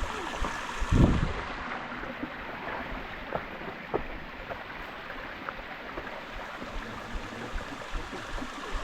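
Steady rush of flowing stream water, with scattered small clicks and knocks and a heavy low thump about a second in.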